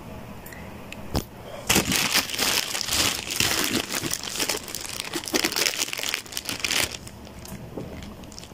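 Thin paper wrapping crinkling and rustling as hands press and handle a wrapped package, with a sharp click about a second in. The crinkling is dense from a little under two seconds in and dies down near the end.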